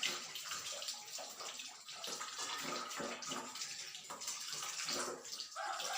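Tap water running and splashing as hands are washed under it.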